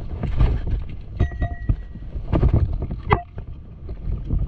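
Wind rumbling on the microphone, with scuffing footsteps of sandals on rough rock and knocks of carried gear, including two short ringing clinks about a second in and three seconds in.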